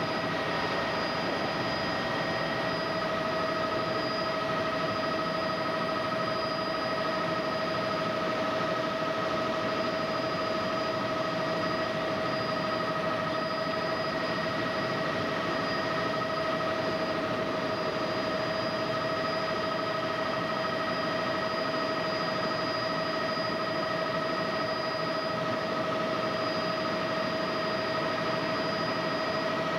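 Helicopter in flight heard from inside the cabin: a steady engine and rotor noise with a constant high whine, unchanging throughout.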